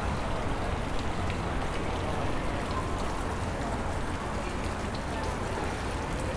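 Water splashing steadily in a public stone fountain, an even hiss with a low rumble underneath.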